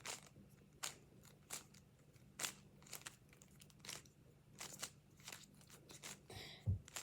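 Plastic 3x3 speed cube being turned fast by hand: faint, irregular clicks as the layers snap round, with a soft thump near the end.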